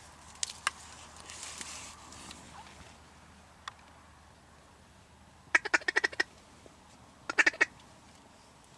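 Duck call blown in two quick runs of quacks, about eight in the first and four or five in the second, a second and a half apart: a hail to draw in ducks flying past. Before the quacking there are faint rustling of corn leaves and a couple of small clicks.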